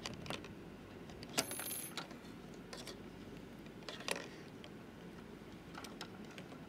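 Faint clicks and small clatter of a battery and metal spring clips being handled and fitted into a plastic circuit-kit tray. A sharper metallic click with a brief ring comes about a second and a half in, and another click about four seconds in.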